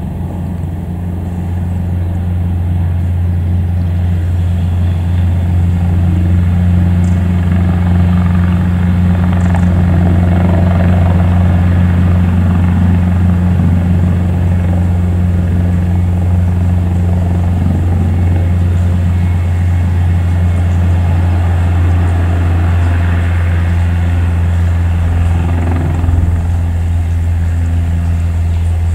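Eurocopter EC225 Super Puma twin-turbine helicopter lifting off and climbing away at take-off power. Its rotors and turbines make a steady deep drone that grows louder over the first few seconds.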